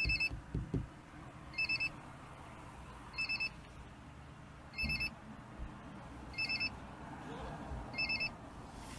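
Electronic beeping: a quick cluster of high beeps about every one and a half seconds, six times, with a few low thumps near the start.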